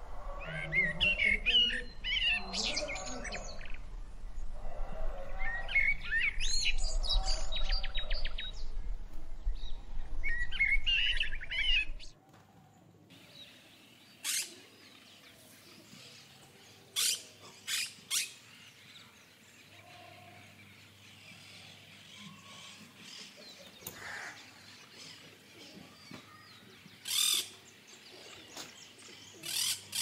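Small birds chirping in repeated bursts over a steady low hum. About twelve seconds in, the sound drops off suddenly, leaving only a few short, sharp chirps spaced well apart.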